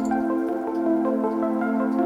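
Background music of soft, sustained notes, with no clear keystrokes or other foreground sounds.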